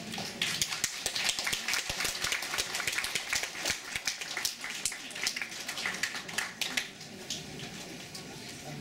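Audience applauding, the claps dying away about seven seconds in.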